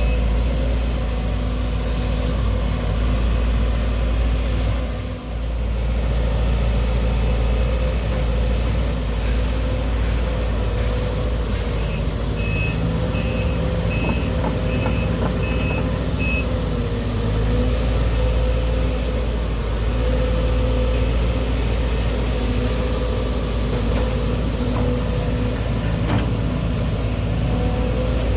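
Heavy diesel machine engine running steadily. A beeping warning alarm sounds about twice a second for roughly four seconds midway.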